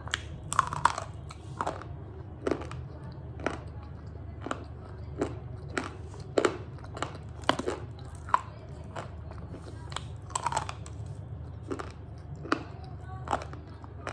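Slate pencils being bitten and chewed close to the microphone: sharp, brittle crunches and crackles at an uneven pace of about one a second, over a steady low hum.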